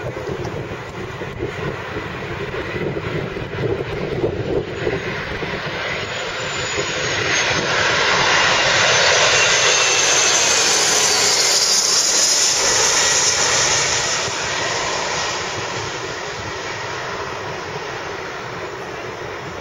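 Embraer ERJ-145 regional jet's twin Rolls-Royce AE 3007 turbofans passing low overhead on landing approach: the jet noise swells to a peak about halfway through, with a high whine and a whistle that drops in pitch as it passes, then fades away. Gusty wind buffets the microphone in the first few seconds.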